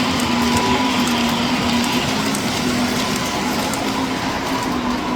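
Model train running on a miniature layout's track: a steady motor hum with faint light clicking.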